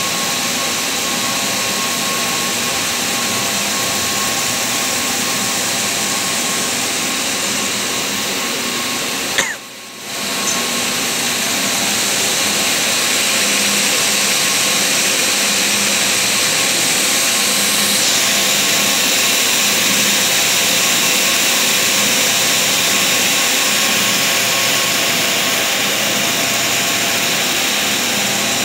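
Four-track single jersey circular knitting machine running steadily, giving a continuous mechanical whirr and hiss with a few steady hum tones. The sound cuts out briefly about ten seconds in, then resumes a little louder.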